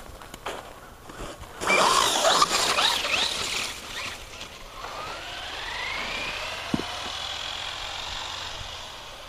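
Traxxas Stampede 4x4 RC truck's Turnigy 3665 brushless motor and drivetrain, revving hard in a loud burst about two seconds in, then a long whine rising in pitch as the truck speeds up, with a short knock partway through.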